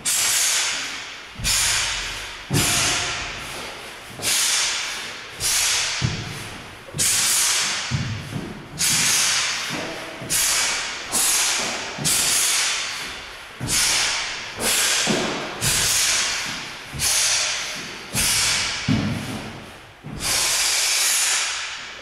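A taekwondo practitioner's forceful hissing exhalations, one with each technique of the pattern, about one every second and a half. Each starts sharply and fades away, and some come with a low thud.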